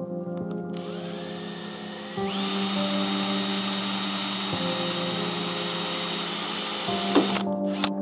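Power drill spinning up about a second in, then boring into a welded steel tube with a steady high motor whine, and stopping shortly before the end. Background music with steady tones plays throughout.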